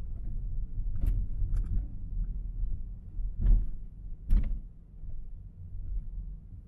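Low rumble of a car driving on city streets, with four short knocks about one, one and a half, three and a half and four and a half seconds in, the last two loudest. The rumble drops lower after the last knock.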